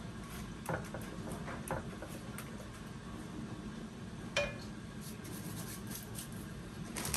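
A kitchen utensil scraping and knocking against cookware as a casserole mixture is spooned out and spread, with a few soft knocks in the first two seconds and one sharper, ringing clink about four seconds in.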